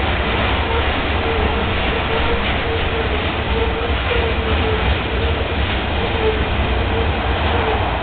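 Loaded freight train of open rock hopper cars rolling past: a steady rumble of steel wheels on rail, with a faint on-and-off whine.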